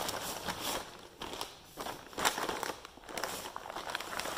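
Heavy paper feed bags crinkling and rustling as a cast-iron tractor PTO housing is shifted and tipped over onto them, with a few brief handling knocks.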